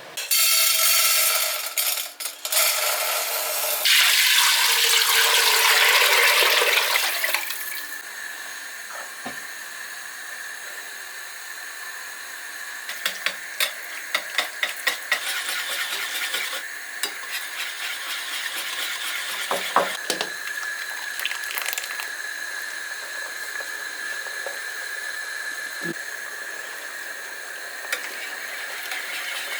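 Kitchen sounds: a loud rush of running or pouring water for the first seven seconds or so, then quieter scattered light clinks of utensils and dishes.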